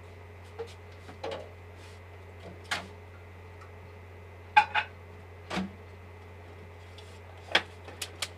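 Scattered sharp clicks and clacks of eating with disposable chopsticks from a plastic deli tray, about nine in all, the loudest pair about halfway through, over a steady low hum.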